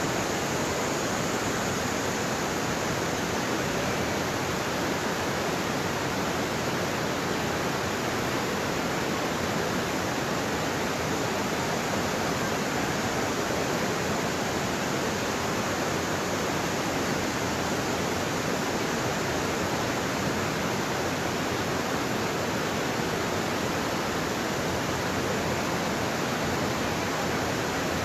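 Steady rush of water pouring over a low dam and running through rocky rapids in a creek.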